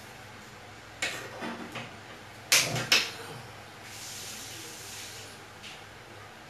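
A few knocks and clatters of things being handled: a small click about a second in with a couple of lighter ones after it, then two sharp, loud knocks close together about two and a half seconds in.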